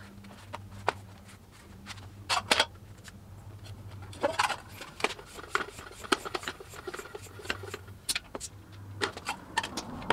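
A few clicks and knocks from handling a bicycle wheel with a hub motor fitted. Then a floor pump inflating the tyre, with short even strokes about two a second, over a low steady hum.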